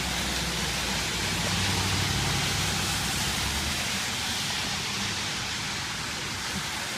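Heavy rain pouring down steadily, an even hiss, with a low rumble underneath that fades about four seconds in.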